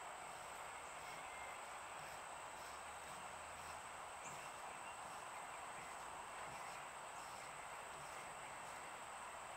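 Faint steady background ambience: a constant high-pitched insect trill over a low even hiss.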